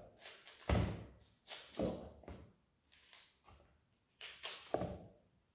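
Small knife cutting the green leaves off a cauliflower head, about six short, crisp cracking crunches as the stems are sliced through one by one.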